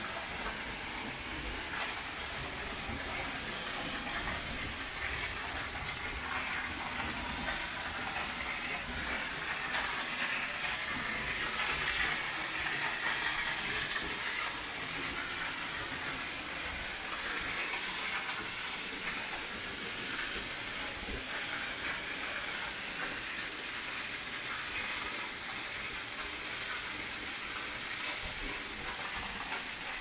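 Steady rushing of a waterfall, swelling a little about halfway through.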